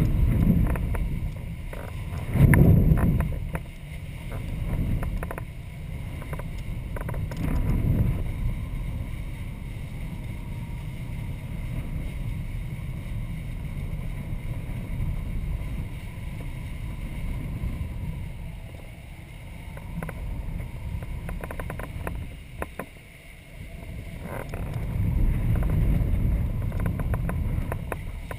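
Wind rushing over a microphone carried aloft on a kite, a low rumbling noise that swells and eases in gusts, with strong surges about two seconds in and again near the end.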